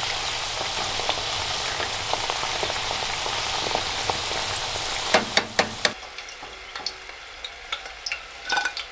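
Hand-cut potato fries deep-frying in a saucepan of hot oil: a steady sizzle, with light taps of a fork stirring them. About five seconds in come a few sharp metallic clinks, then the sizzle drops away and only small clinks follow as the fries are lifted out in a wire basket.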